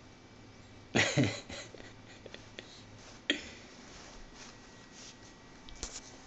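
A toddler's short, loud vocal burst falling in pitch, given twice in quick succession, then a single sharp click.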